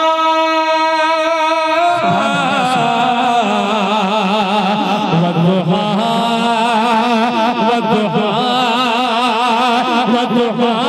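A man singing a naat solo, in a chant-like melodic style. He holds one long note for about the first two seconds, then moves into a wavering, richly ornamented melodic line.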